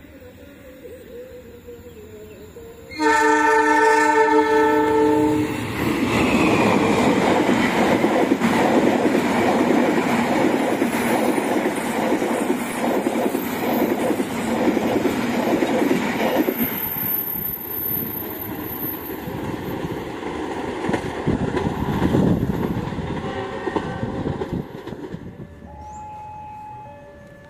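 Diesel locomotive horn sounding one chord-like blast of about two and a half seconds. Then a passenger train passes at speed, its wheels clattering rhythmically over the rail joints; the rumble eases after about 17 s and dies away near the end.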